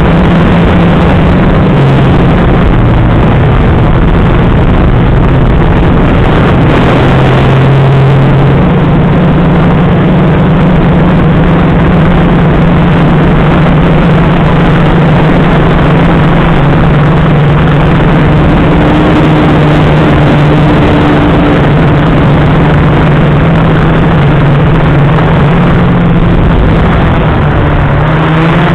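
FPV racing quadcopter's electric motors and propellers buzzing, recorded by the onboard camera. Its pitch steps up and down as the throttle changes, over a dense rushing noise.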